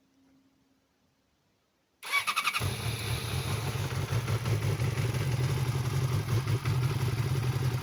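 Yamaha R6's inline-four engine cranked by the electric starter about two seconds in, catching within half a second and settling into a steady cold idle. It is the first start after the clutch was rebuilt, and no clutch-basket knock stands out, which the owner judges normal.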